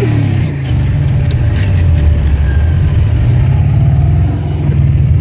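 Freshly tuned 1986 Ford Mustang 5.0 302 V8 with TFS cylinder heads, heard from inside the cabin at full throttle, accelerating hard through the low gears. The engine sound is loud and steady, with a brief dip about four seconds in.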